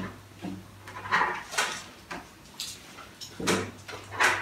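Knife and fork scraping and clinking on a plate while a pancake is cut, in several short irregular strokes, the loudest near the end, over a faint low steady hum.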